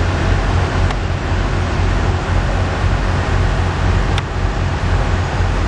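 Heavy vehicle machinery running with a steady low rumble and road noise, two faint clicks about one second and four seconds in.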